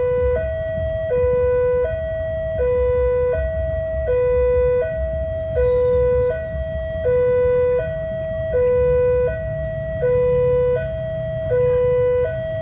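Railway level-crossing warning siren sounding a steady two-tone hi-lo alternation, switching pitch about every three-quarters of a second, warning that a train is approaching. A low rumble runs underneath.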